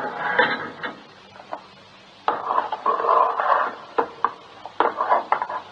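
Hard objects being handled: a rustle, a brief lull, then from about two seconds in a clatter with several sharp clicks.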